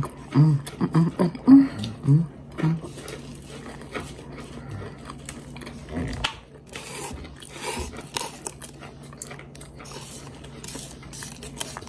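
Close-up chewing and biting of crunchy food, with many sharp crisp crackles scattered through.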